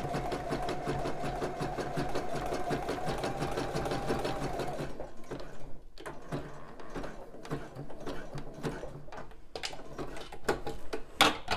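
Juki sewing machine running at a steady speed, sewing a zigzag stitch to attach hook-and-eye tape, with a fast even stitch rhythm. It stops about five seconds in, and scattered clicks and fabric-handling sounds follow.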